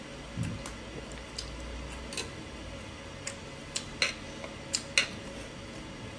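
Metal chopsticks clicking and tapping against small dishes and tableware: a scatter of short sharp ticks, the loudest about four and five seconds in.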